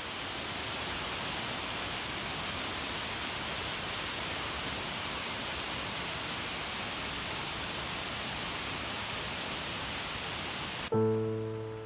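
Steady rushing water of a waterfall, an even roar that cuts off abruptly near the end as music comes in.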